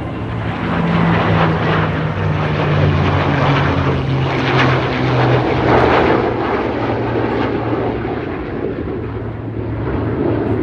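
Propeller-driven airplane flying past, its engine drone and rushing noise building to a peak mid-way and then easing off.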